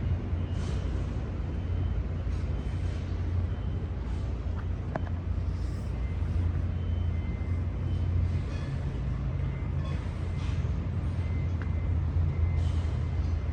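Outdoor city ambience: a steady low rumble with a faint hiss above it and a few faint scattered sounds, no single event standing out.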